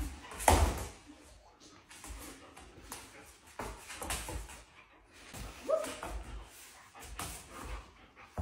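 German shepherd whimpering and making excited noises while jumping up on a person, with one short whine about two thirds of the way through. A sharp, loud sound about half a second in.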